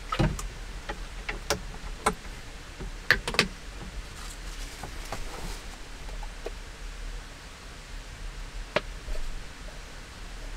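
Scattered light knocks and clicks of handling things in a small wooden room: a plastic bottle set down on a wooden desktop at the start, then a small hard case picked up and handled, with a sharp click near the end.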